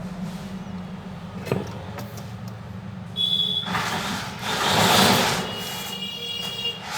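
Road traffic noise: a vehicle swells past, loudest about five seconds in, with two short high tones like vehicle horns before and after it, over a steady low hum.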